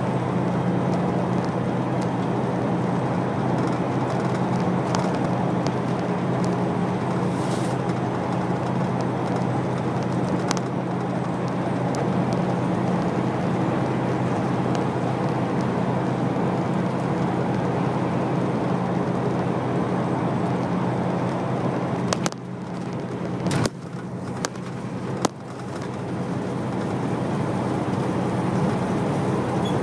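Steady engine hum and road noise inside a moving vehicle at motorway speed. About 22 seconds in, the sound briefly drops with a few sharp clicks, then steadies again.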